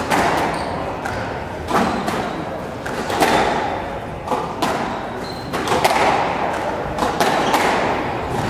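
Squash rally: the hollow rubber ball struck by racquets and smacking off the front wall and floor of the court, a sharp hit every half second to second, each ringing briefly in the hall. A brief high squeak about five seconds in.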